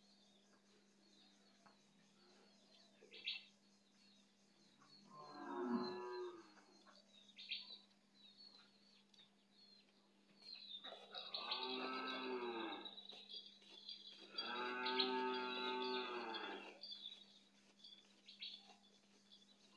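Goat bleating three times: a shorter call about five seconds in, then two long, loud bleats of about two seconds each.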